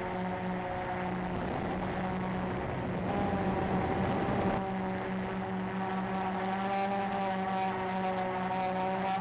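Small quadcopter's electric motors and propellers running with a steady buzzing hum, heard from the camera mounted on the drone, with a stretch of rushing air noise around the middle.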